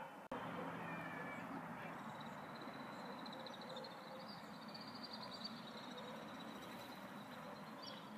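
An insect trilling high and fast for a few seconds in the middle, over a steady outdoor hiss.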